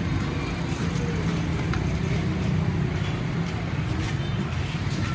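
Steady low rumble of background noise, traffic-like, with a few faint clicks.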